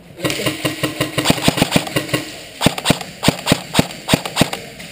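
Airsoft guns firing: a rapid string of shots over a steady motor whine for about two seconds, then separate single shots about three or four a second.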